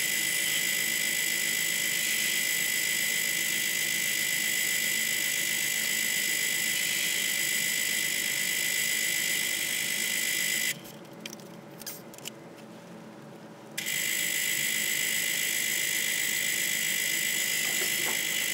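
Old geared-head metal lathe running steadily while machining the end of a hub, a steady high whine with several fixed tones. About eleven seconds in it drops away for about three seconds, then runs again.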